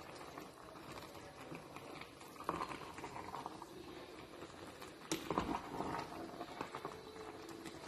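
Wooden spatula stirring and lifting creamy pasta in a stainless steel pot, with irregular knocks and scrapes against the pot; the loudest knocks come about two and a half and five seconds in.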